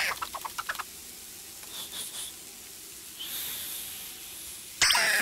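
Cartoon sound effects: a few quick light taps, then a steady high hiss like escaping steam, then a sudden loud burst near the end.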